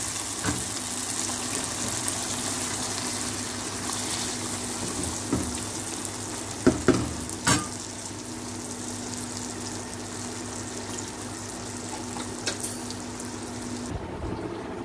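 Chicken korma gravy sizzling and bubbling in a nonstick frying pan just after the gas flame is turned off, the sizzle slowly thinning, under a steady low hum. Three sharp knocks a little past halfway; the sizzle and hum stop suddenly near the end.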